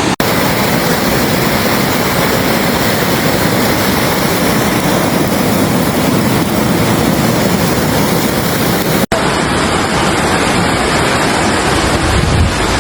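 Fast floodwater rushing in a steady, loud roar. The sound drops out for an instant twice, just after the start and about nine seconds in, where the footage is cut.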